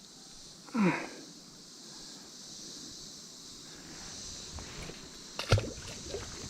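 Steady high-pitched insect buzz along a stream bank. A short voice-like sound comes about a second in, and a sharp knock comes about five and a half seconds in.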